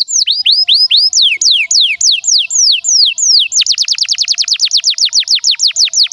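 Canary singing a long tour of repeated falling whistled notes, about three a second, switching about three and a half seconds in to a faster, tighter trill of shorter falling notes.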